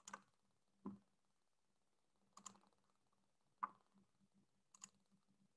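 About five faint, separate clicks from working a computer's mouse and keys, spaced roughly a second apart.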